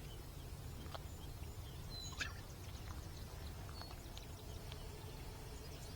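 Quiet outdoor ambience: a steady low rumble of wind with a few faint, short bird chirps, the clearest about two seconds in.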